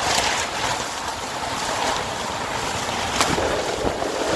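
Gale-force wind blowing hard and buffeting the microphone, with a sharp crack about three seconds in and a smaller one just after.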